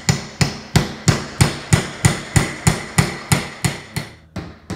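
A small hammer driving little nails into pine wooden blocks: a steady run of sharp taps, about three a second, with a brief pause near the end.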